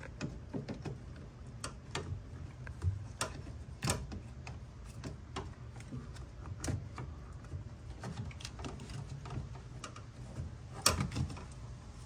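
Irregular plastic clicks and knocks as a new drain pump is wiggled by hand into its mount in an LG front-load washer, with one sharper knock near the end as it seats.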